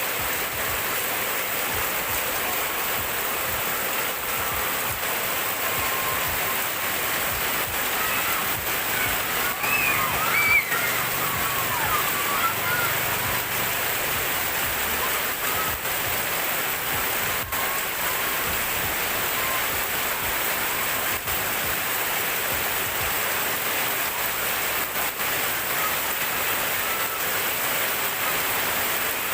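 Heavy rain pouring steadily, an even dense hiss of rain and running water. Voices rise faintly over it for a few seconds about a third of the way through.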